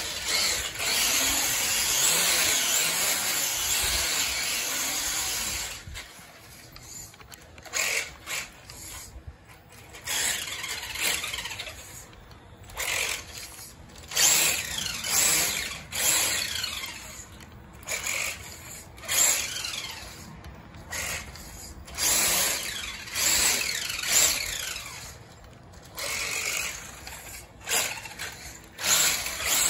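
Feiyue FY01 RC truck, converted to a brushless motor and rear-wheel drive, driving on concrete. The motor whines up and down in pitch as the throttle is worked: steady for about the first six seconds, then in many short bursts with quieter gaps between them.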